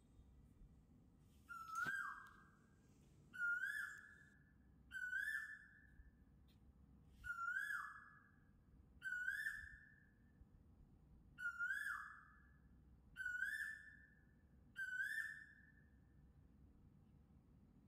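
A bird calling eight times at an even pace, a short call about every second and a half, each a quick rising note that falls away. There is a single sharp click about two seconds in.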